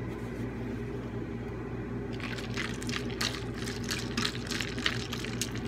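Steady hum of a room air conditioner. From about two seconds in, a run of short wet clicks and crackles, liquid sounds as a lime wedge is pushed into a beer.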